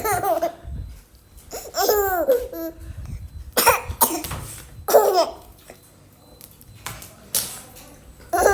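A baby laughing hard in a series of separate bursts a second or two apart, with coughs mixed among the laughs, set off by the laughing.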